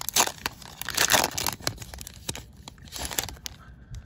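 Foil wrapper of a Pokémon card booster pack being torn open and crinkled by hand, in quick crackly bursts with the loudest rips about a second in, tapering off near the end.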